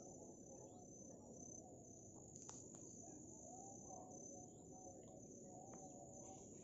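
Faint, steady high-pitched insect trill, pulsing at first and then continuous, over a low rustling haze, with a few faint clicks.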